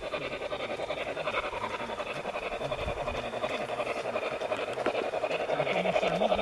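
Garden-railway model steam locomotive running with a fast, even chuffing beat that grows louder as the train comes out of the tunnel and approaches.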